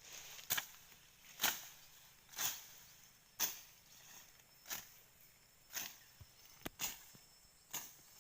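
Footsteps crunching through dry vegetation, about one step a second, with a faint steady high insect-like hum underneath.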